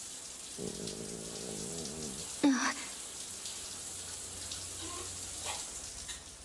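Cartoon-style stomach growl: a wavering, warbling rumble lasting about a second and a half, then a short vocal exclamation and a faint low rumble, over a steady hiss.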